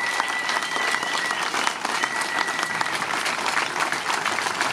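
Crowd applauding, a steady patter of many hands clapping. A high, steady held tone sounds twice over the first three seconds.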